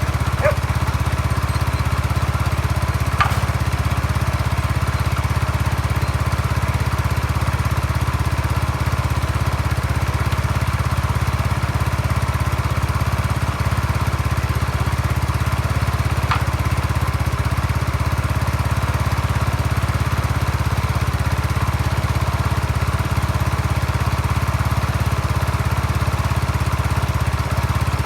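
Yamaha Mio Sporty scooter's single-cylinder four-stroke engine running steadily at idle, with a few faint clicks.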